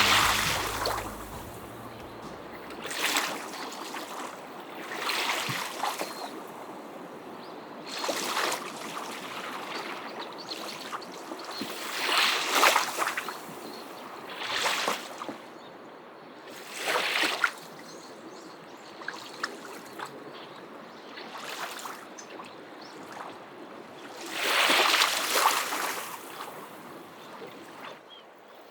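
Small waves breaking and washing up a sandy beach, a surge of hissing water every two to four seconds.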